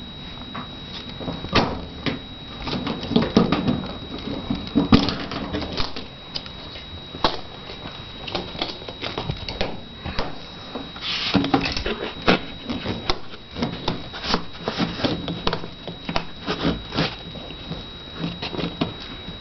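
Irregular clicks, knocks and rustling of things being handled by hand, with a faint steady high whine throughout.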